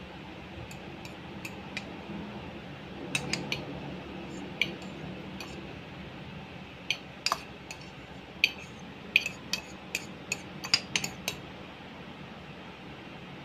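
Metal spoon clinking and tapping against a serving dish while scrambled egg is spooned onto fried rice. The clicks are short and scattered, and come faster between about seven and eleven seconds in.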